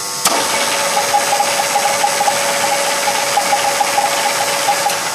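Huron MU5 knee-type milling machine's power feed moving the table: a click shortly after the start as the drive engages, then a steady gear whine with a regular pulsing beat.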